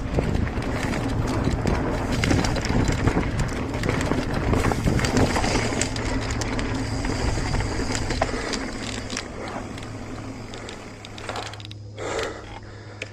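Mountain bike rolling down a dirt trail: tyre noise and a dense rattle of the bike's parts, easing off after about nine seconds as it slows, followed by a couple of hard breaths near the end.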